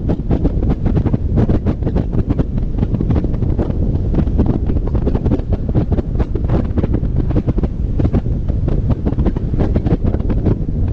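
Wind buffeting the microphone of a roof-mounted camera on a car moving at road speed: a loud, gusty rumble that never lets up.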